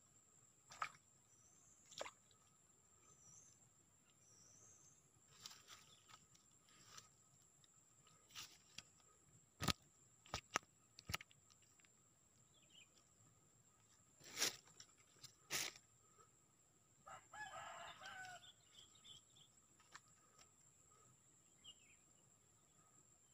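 A rooster crows faintly, once, about two-thirds of the way in. Around it are scattered sharp clicks and a steady high-pitched whine over near silence.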